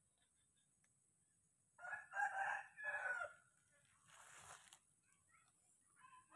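A rooster crowing once, a call in about three parts lasting around a second and a half. About a second later comes a short burst of hiss.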